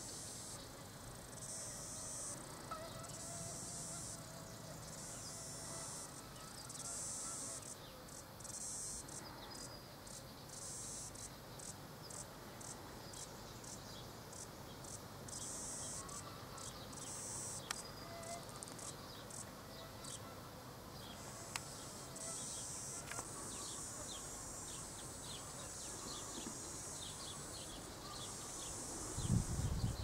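Cicadas calling in high-pitched pulsing bursts, mostly phrases of about a second each, with a quicker run of short pulses, about two a second, in the middle. A louder low rumble starts just before the end.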